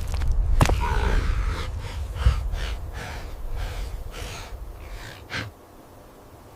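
An animal's heavy, rhythmic breathing, about two breaths a second over a low rumble, dying away about five seconds in.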